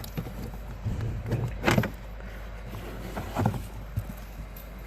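Plastic interior trim cover being handled and fitted: a few scattered clicks and knocks, the loudest about a second and a half in, over a low steady hum.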